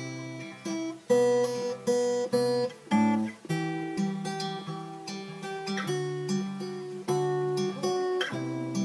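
Music: an acoustic guitar strumming chords in a steady rhythm, with no singing.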